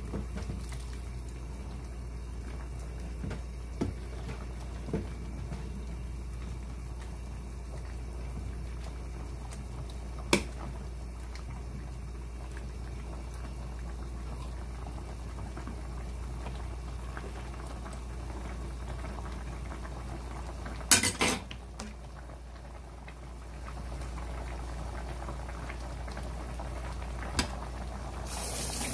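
Pot of spicy chicken stew bubbling steadily at a simmer. A few sharp clinks and knocks sound against the pot, the loudest a quick cluster about two-thirds of the way through.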